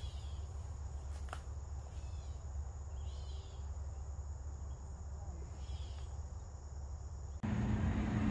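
Insects chirping in a steady high drone over a low background hum, with a few faint short chirps. About a second before the end, a louder noise with a low hum starts abruptly.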